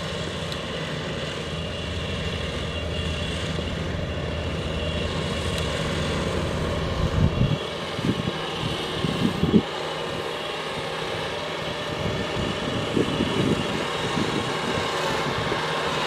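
Kubota DC-70 Plus combine harvester's diesel engine running steadily as the machine drives toward the listener on its rubber tracks, growing slightly louder. A few loud low bumps break in around the middle.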